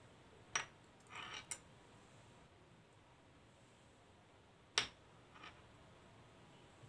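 A metal spoon clinking against small glasses: two sharp clinks about four seconds apart, with a brief softer scrape just after the first and a faint tap after the second.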